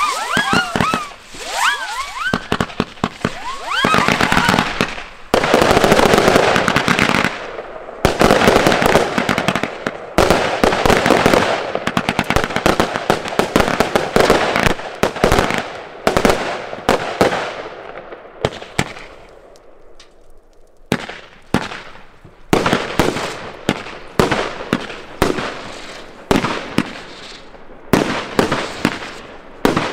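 New Year's Eve consumer fireworks going off overhead: rising and falling whistles in the first few seconds, then a dense, continuous barrage of bangs and crackling. The barrage thins to separate sharp bangs after a short lull about two-thirds of the way through.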